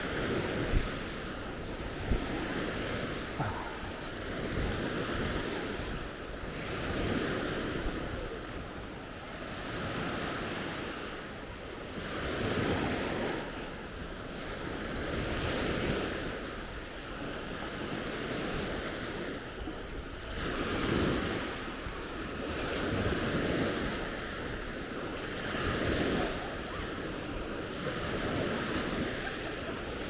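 Baltic Sea waves breaking and washing up the sandy beach, the surf swelling and fading every few seconds, with wind buffeting the microphone. A sharp knock sounds about a second in.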